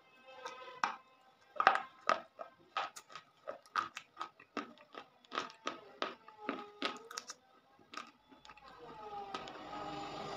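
Chalk being bitten and chewed: sharp, crisp crunches come irregularly, about two to three a second, for about eight seconds. Near the end the crunching stops and background music comes up.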